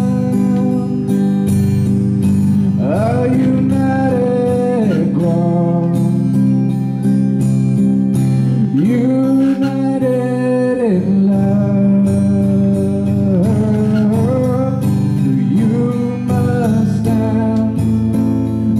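A man singing to his own strummed acoustic guitar: a steady strum under long held notes that slide up and down in pitch, without clear words.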